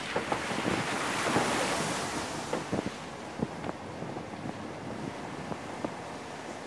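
Wind rushing over a microphone on the roof of a moving vehicle, swelling loudest in the first two seconds and then easing, with scattered sharp knocks and clicks throughout.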